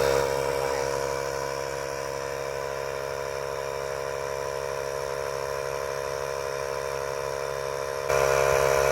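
Air compressor built into a portable jump starter running as it pumps up a car tyre: a steady pitched hum over a hiss. It gets louder about eight seconds in.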